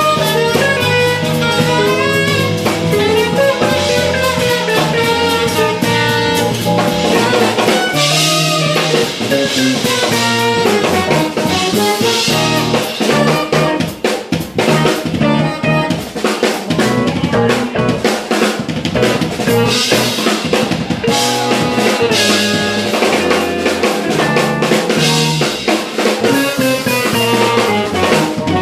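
Live jazz-fusion band playing an up-tempo instrumental: a busy drum kit with snare and rimshot hits over electric bass, guitar and keys. A melodic line, likely the saxophone, is prominent for the first several seconds, after which the drums come to the fore.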